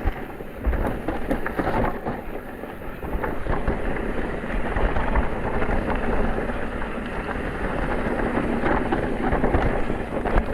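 Electric mountain bike rolling over a rough trail: steady rumble with fine crackling from the tyres on stones and gravel, picked up close by a bike- or body-mounted camera.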